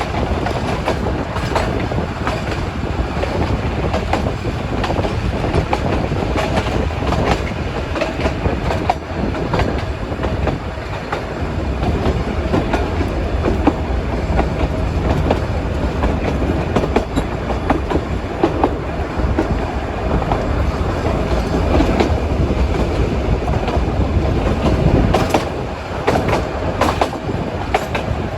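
Nilgiri Mountain Railway metre-gauge toy train running along the track: a steady rumble with the wheels clicking over rail joints, the low rumble growing heavier for a stretch in the middle.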